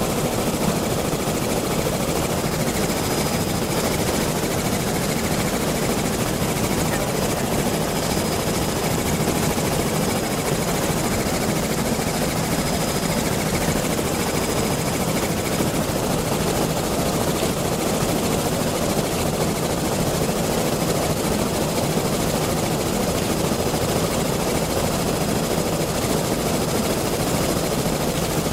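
Steady drone of a helicopter in flight, heard from inside the aircraft, with a faint high whine above it for part of the time.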